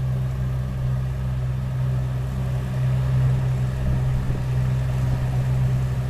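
Tractor engine running steadily as a low, even drone that holds the same pitch throughout.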